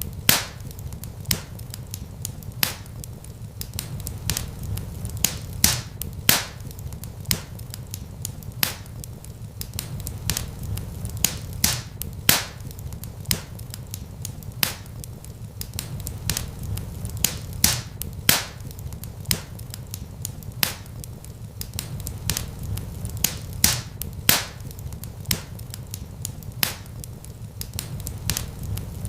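Wood fire crackling: irregular sharp pops and snaps, one to three a second, over a steady low rumble of flames.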